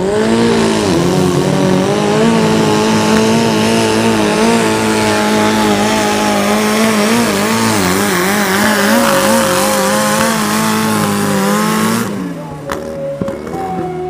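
Turbocharged, methanol-fuelled engine of a free-class garden-pulling tractor at full throttle while it drags the sled, its pitch wavering as it labours. About twelve seconds in the engine is shut off and the sound drops sharply.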